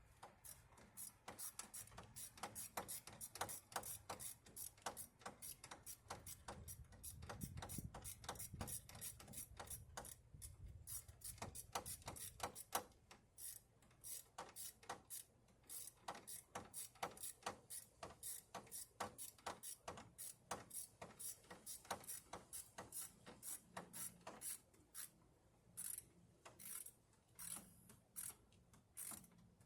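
Faint, irregular clicking and rubbing of hand tools and metal parts being worked by hand, a few sharp clicks a second.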